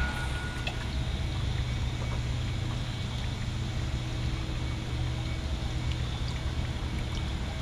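A steady low rumble with a faint hiss over it.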